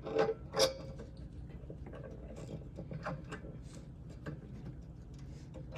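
Small clicks and taps of a screw and crimped eye-loop terminal being handled and set into the side of an air compressor: two sharper clicks in the first second, then scattered faint ticks.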